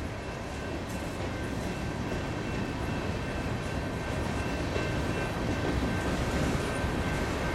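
Ballast hopper cars of a freight train rolling past at speed: a steady rumble of steel wheels on rail, with a faint steady high whine on top, growing slowly louder toward the end.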